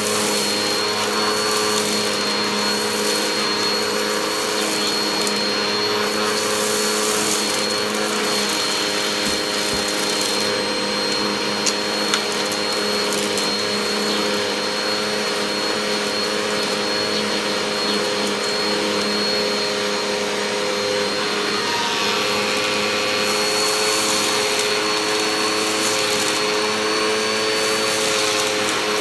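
Vacuum cleaner running steadily through a hose and nozzle tool, with a constant motor whine, as it sucks up loose dirt, hair and grit from a shag rug, the debris crunching and rattling up the hose.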